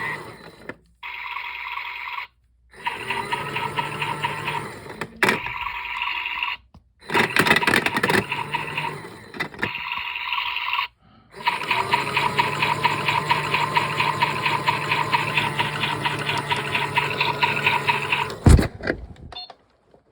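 Battery-powered toy washing machine running: its small motor whirs with a steady hum and a fast rattle, cutting out abruptly several times, with a sharp knock near the end.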